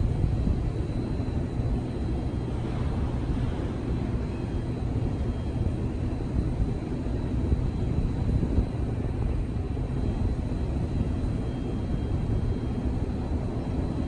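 Wind rumbling on the microphone outdoors, a steady low noise that flutters with the gusts.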